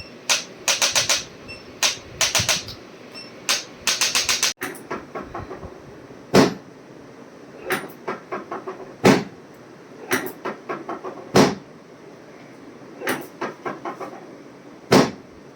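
Chiropractic adjustment: a series of sharp clicks and knocks, in quick runs of four or five in the first few seconds, then louder single knocks every two or three seconds.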